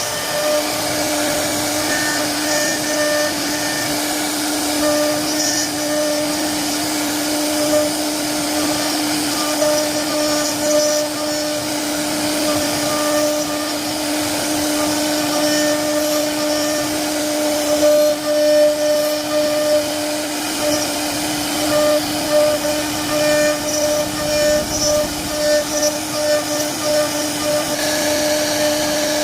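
CNC router carving wood: the spindle runs with a steady, unchanging hum, while the bit cutting the wood adds a rough, fluctuating cutting noise.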